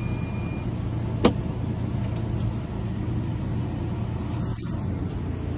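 Chevy Express van's engine idling with a steady low hum. A sharp click sounds a little over a second in, with a few fainter clicks later.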